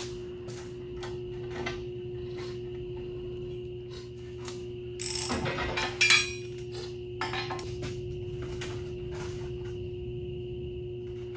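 Steel parts and hand tools clanking and rattling against the roller compactor's steel frame and the concrete floor, with a loud cluster of ringing metal knocks about five to six and a half seconds in, over a steady hum.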